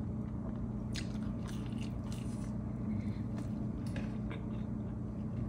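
A person chewing a mouthful of pizza, with faint scattered crunches and mouth clicks, over a steady low hum.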